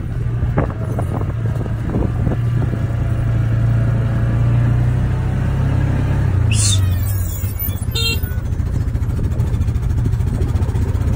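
Engine of a small off-road vehicle running steadily, its hum dropping slightly in pitch about six seconds in, with a few sharp knocks near the start.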